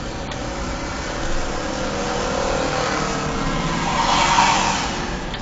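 A car driving, heard from inside the cabin: engine and road noise that swells to its loudest about four seconds in.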